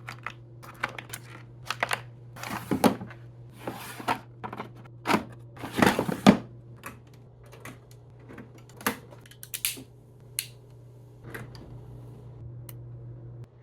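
Irregular clicks and short bursts of noise, unevenly spaced and loudest about five to six seconds in, over a steady low electrical hum.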